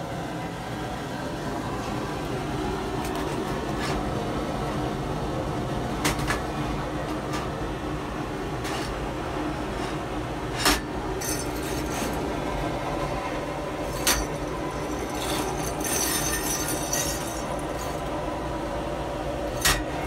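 Steady machine hum with sharp metal clinks and knocks a few times and two stretches of light metallic rattling, like metal parts being handled or jostled.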